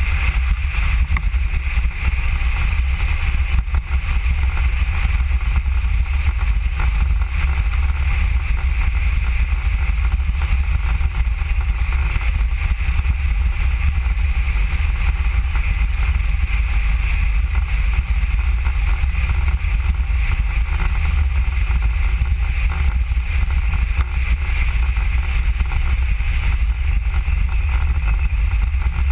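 Mango velomobile rolling along an asphalt road: a steady low rumble with a constant hiss above it.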